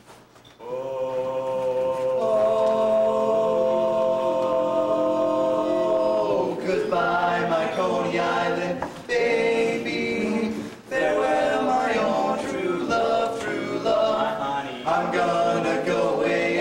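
Male barbershop quartet of bass, baritone, lead and tenor singing a cappella in close harmony. They hold one long chord for about six seconds, then the song moves on in shorter phrases with brief breaths between them.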